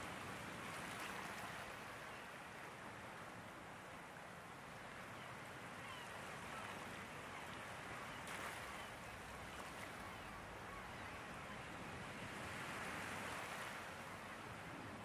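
Wadden Sea shore ambience: a soft, even wash of water and surf that swells and eases a few times.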